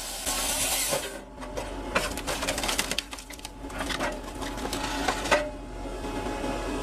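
Wood-processing machinery running with a steady hum under irregular clicks and knocks.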